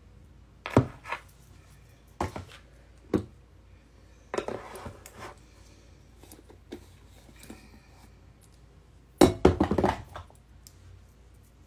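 Small objects being picked up and set down on a hard surface: a few separate knocks and clinks, then a louder burst of clattering about nine seconds in.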